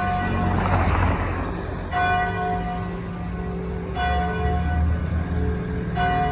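Church bell ringing, struck about every two seconds. Each stroke rings on and fades over a low, sustained hum.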